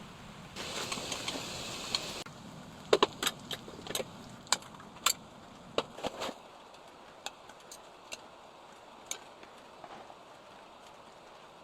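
Brief hiss, then sharp clinks and clicks of small hard objects being handled: a quick run of them, then a few scattered ones.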